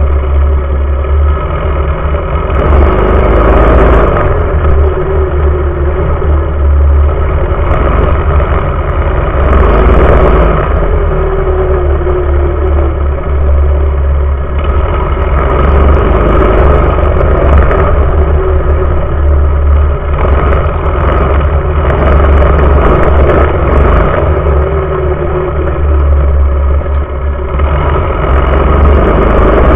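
Home-built mini bike's small engine running hard through a short exhaust pipe close to the microphone, its pitch rising and falling with the throttle over a heavy wind rumble on the microphone.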